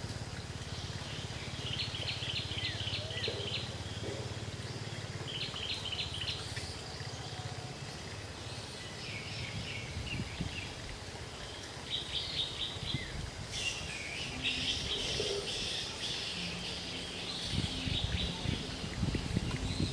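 Animal calls: several short bursts of rapid, high repeated chirps, a few seconds apart, over a steady low background rumble, with a few low thumps near the end.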